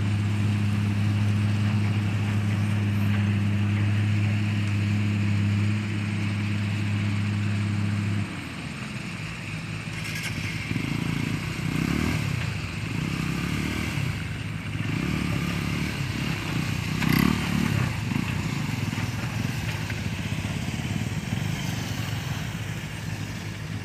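A steady engine hum cuts off abruptly about eight seconds in. After that a small motorcycle engine revs up and down as it is ridden through deep mud.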